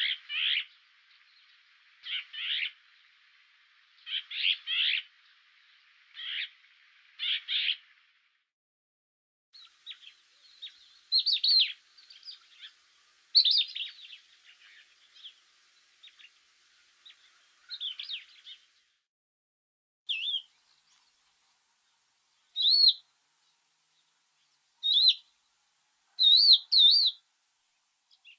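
Songbirds chirping and singing in short phrases a second or two apart, with a busier stretch of twittering in the middle and single calls spaced out near the end.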